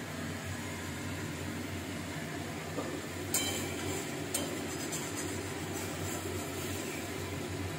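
A few sharp metal clinks of a spatula against a metal kadai (wok), loudest a little over three seconds in and again about four seconds in, over a steady low hum.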